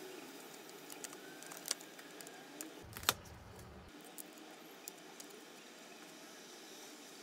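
Hands handling small plastic craft pieces: a few faint, scattered clicks and taps, the sharpest about three seconds in, over a low steady hiss.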